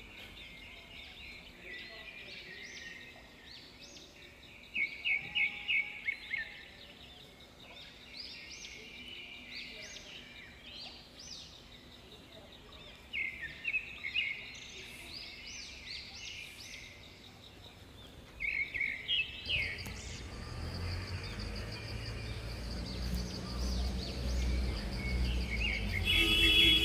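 Birds calling outdoors: several bursts of quick, repeated high chirps over steady background noise. A low rumble builds in the last several seconds.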